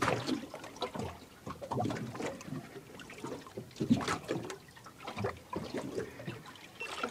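Small water slaps and trickles against a boat's hull at uneven intervals, with a few sharper knocks.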